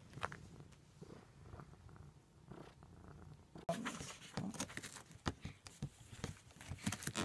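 A domestic cat purring close to the microphone. About three and a half seconds in, the purring gets louder and is mixed with many scratchy clicks and rustles as the cat presses against the microphone.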